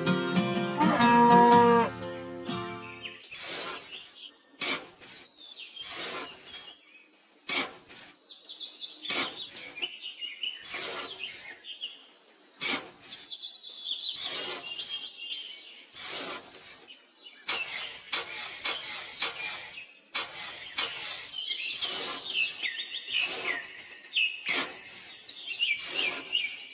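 Background music ends about three seconds in, giving way to birdsong, a repeated series of high descending chirps. Over it come irregular scrapes and crunches of a small hand trowel digging into damp sand.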